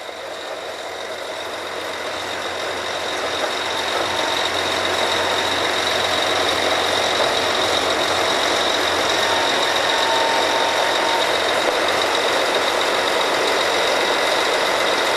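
Oil-well drilling rig machinery running: a steady mechanical din that builds over the first few seconds and then holds, with a thin steady high whine throughout.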